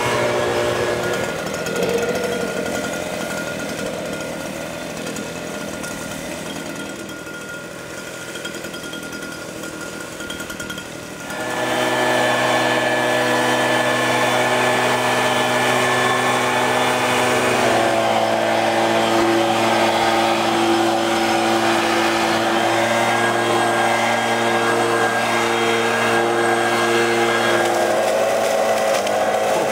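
Two-stroke Stihl handheld petrol leaf blower / vacuum shredder engine running, at a lower speed for the first ten seconds or so. At about eleven seconds it jumps sharply to full throttle and then runs steady and loud, its pitch shifting a couple of times.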